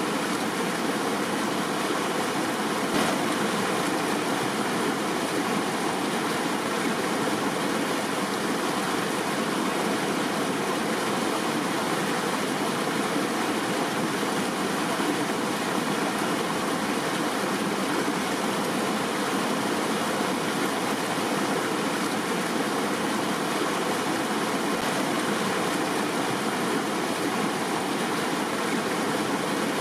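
River water flowing: a steady, even rush of water.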